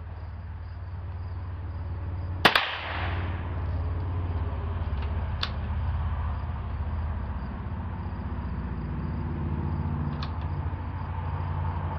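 A single sharp rifle shot about two and a half seconds in, with a ringing tail. Two faint clicks follow later, and another shot comes right at the end, over a steady low rumble.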